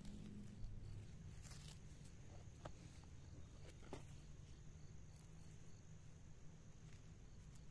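Quiet rural ambience with a faint, steady, high insect-like hum, and a few soft ticks and rustles of hands pulling weeds from soil among seedlings.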